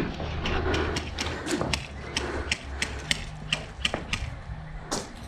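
Airsoft gun firing single shots: a quick run of sharp clicks, about three a second.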